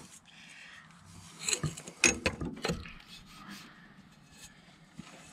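Metal tools clinking and knocking as a socket and pipe are worked onto a seized alternator's pulley nut, with a few sharp strikes close together between about one and a half and three seconds in.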